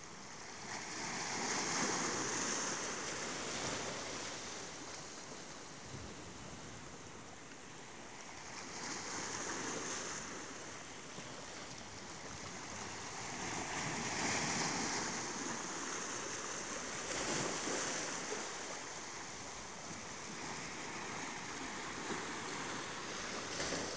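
Small sea waves washing in over shoreline rocks and draining back, the surf swelling and fading several times.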